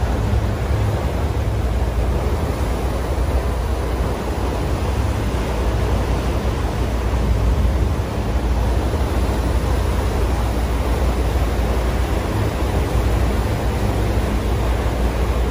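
A passenger boat under way: a steady low engine rumble under the loud rush of churning wake water and wind.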